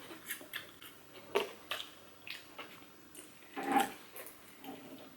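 Close-miked eating sounds: soft chewing and wet mouth smacks at irregular moments, with one brief, slightly louder mouthy sound a little after the middle.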